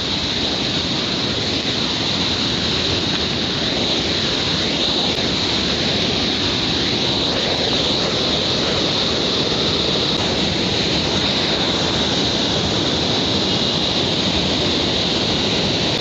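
Mountain waterfall cascading over rocks: a loud, steady rush of water that never lets up, with a high hiss running through it.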